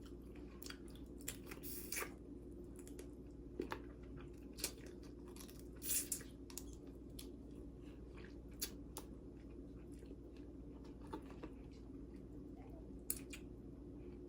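Blue crab being eaten close to the microphone: shells cracking and snapping in scattered sharp clicks, with chewing in between and the loudest cracks about six seconds in. A steady low hum runs underneath.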